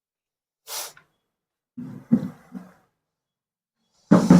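A person's breath and voice sounds: a short sharp breath about a second in, a low mumbled voice around the middle, and a loud vocal burst near the end.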